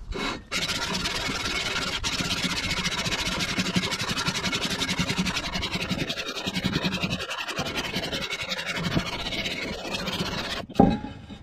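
Cast-iron exhaust manifold from a 1961 Cadillac 390 V8 scraped back and forth, flange face down, on 80-grit sandpaper over a granite slab: a steady rasping that starts about half a second in and stops near the end. The warped head-mating surface is being sanded flat so the gasket will seal.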